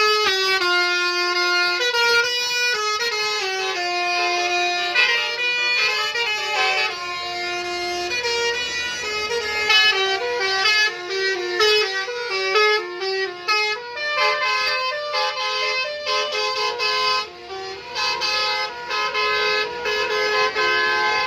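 Indonesian 'telolet' bus horn playing a tune: several horn trumpets sound together in stepped, held notes and chords, changing pitch every half second or so throughout.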